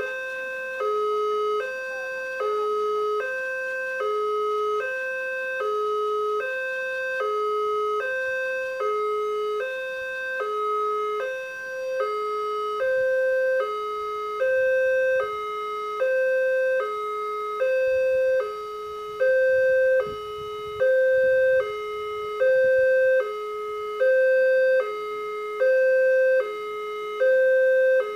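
Electronic warning bell of a railway level crossing sounding its two-tone alarm, a higher and a lower tone alternating steadily, the signal that a train is coming and the barriers are down. It grows louder about two-thirds of the way through.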